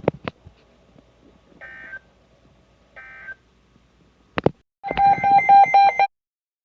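Emergency Alert System signalling tones: a few sharp clicks, then two short, faint bursts of data tone about a second and a half apart, then a louder, rapidly pulsing tone for about a second near the end that cuts off suddenly.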